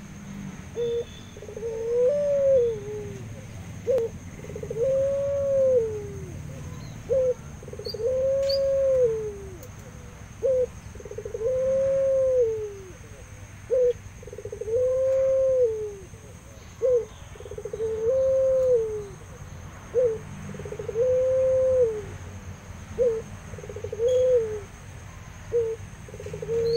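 A domestic ringneck dove (puter pelung) cooing repeatedly. Each call is a short clipped note followed by a long drawn-out coo that rises and then falls in pitch, repeating about every three seconds, some eight times.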